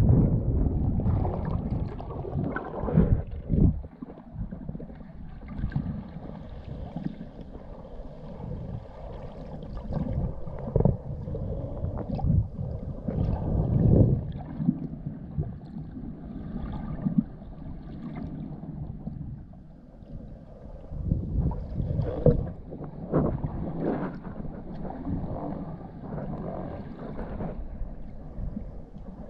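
Muffled underwater noise picked up by a camera in a waterproof housing as a diver swims over the reef: irregular low surges of water rushing around the housing, with a few sharp knocks.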